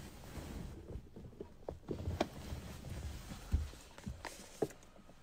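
Faint handling noise: scattered, irregular clicks and knocks over a low rumble, with a slightly louder knock about two seconds in and another about three and a half seconds in.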